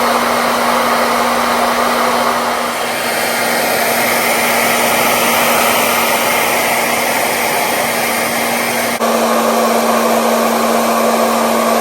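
Electric power sander running steadily on a plywood board: a constant motor hum under a loud, even sanding hiss, with a brief break about nine seconds in.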